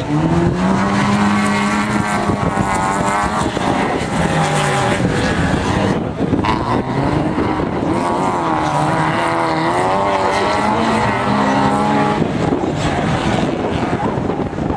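Autocross race car engines revving hard, the pitch climbing and dropping repeatedly as the cars accelerate and shift, in two long runs with a short break between.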